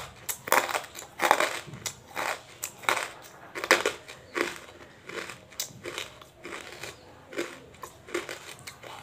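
Close-miked chewing of hard tabasheer (bamboo silica) crystals: a steady run of sharp crunches, about two a second, getting softer toward the end.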